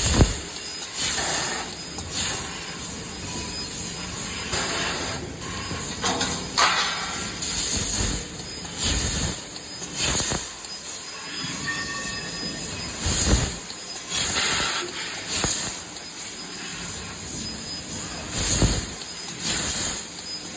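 CNC laser cutting machine running, a steady hiss of air or gas with louder surges every second or two.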